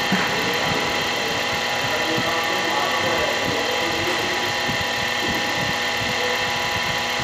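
An engine running steadily, an unbroken hum of several steady tones with faint irregular ticking underneath.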